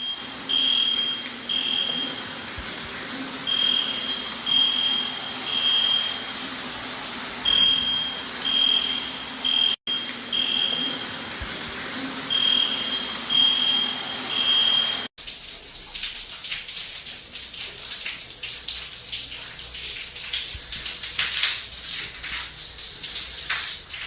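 Smoke alarm sounding its alarm pattern of three short, high beeps, repeated over and over, over a steady rush like running water. After a cut about 15 seconds in, the beeping stops and an irregular patter of drips and crackles takes over.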